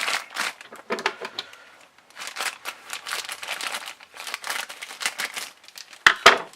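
Plastic packaging wrap crinkling and rustling in irregular bursts as it is pulled off and unwrapped, with two sharp knocks close together near the end.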